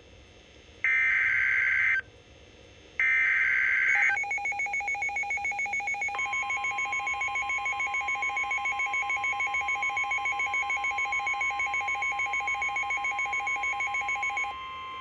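NOAA Weather Radio Emergency Alert System (SAME) header: two harsh bursts of digital data tones, each about a second long, a second apart, signalling a flood warning. Then a rapidly pulsing beep starts, and about six seconds in the steady 1050 Hz weather radio alert tone joins it and holds to the end.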